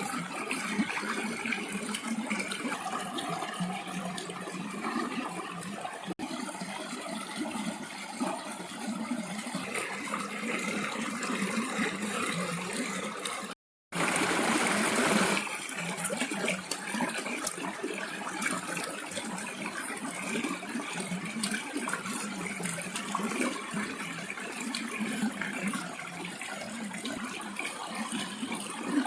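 Water trickling and splashing, with many small clicks. It is broken by a brief gap about halfway through, followed by a louder rush of water for a second or so.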